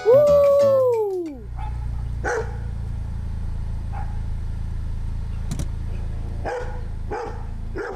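A dog barking about five times, the barks spaced out, over a steady low rumble. It opens with a loud tone that swoops up and then slides down over about a second and a half.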